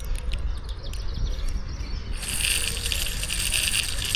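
Small digital baitcasting reel working: a few light clicks, then from about two seconds in a dense, fast ratcheting clatter of the reel's spool and gears.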